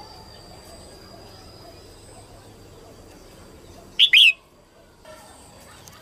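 Female red-whiskered bulbul giving one short, loud call of two or three quick chirping notes about four seconds in, over faint background noise. It is the female call used to rouse male bulbuls.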